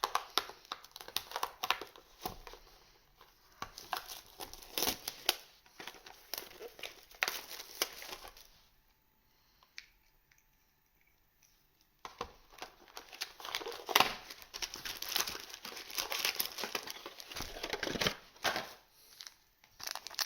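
Plastic packaging of trading-card booster packs crinkling and tearing as they are opened, in dense crackly handling noise, stopping for about three seconds near the middle before resuming.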